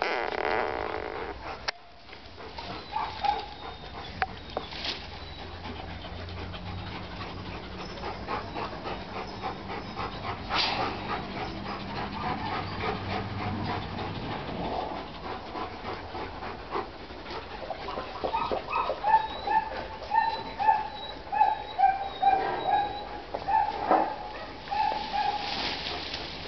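A dog giving short, repeated pitched cries, about two a second, through the second half, over rustling of grass and leaves as a dog rubs itself along the vegetation.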